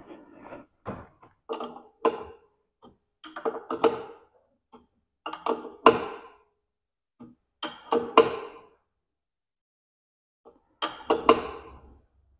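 Air hose being stretched out in pulls: about six short bouts of knocking and scraping, roughly two seconds apart, as the hose is dragged and knocks about.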